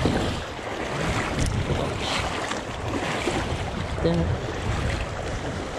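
Rushing river water with wind rumbling on the microphone; a short pitched sound about four seconds in.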